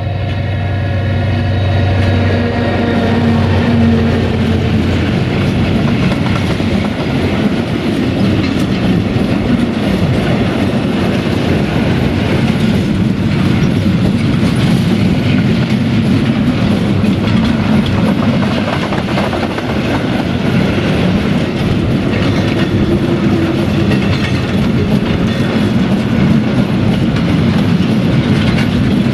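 NOHAB diesel locomotive's EMD two-stroke V16 engine running as it passes close in the first few seconds, fading away. Then a long string of cement hopper wagons rolls by, the wheels clicking steadily over the rail joints.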